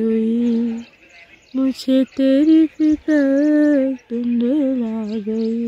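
A voice humming a slow melody without words, in held notes broken into short phrases with brief pauses between them.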